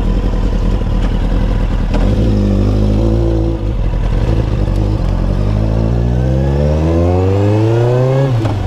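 Kawasaki Ninja sport bike engine idling, then pulling away and accelerating hard, its note rising through the gears with a shift about three and a half seconds in and another near the end.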